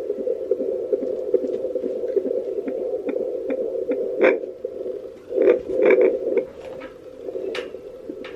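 Handheld fetal doppler's speaker playing an unborn baby's heartbeat as a fast pulse, a little over two beats a second, over a steady hum. From about four seconds in, louder, irregular swooshes break in over the beat.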